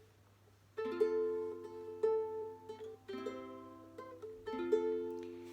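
Four chords strummed on a plucked string instrument, starting about a second in and coming a little over a second apart, each left to ring and fade, with the chord changing between strums: an introduction played before singing begins.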